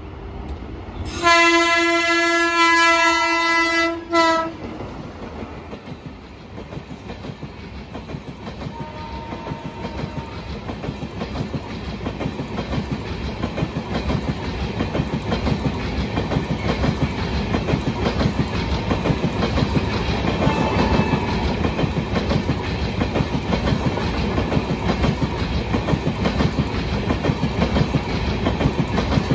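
A train horn sounds one long blast of about three seconds. Then the Amrit Bharat Express coaches pass close by, their wheels clattering over the rail joints in a quick steady rhythm that grows steadily louder.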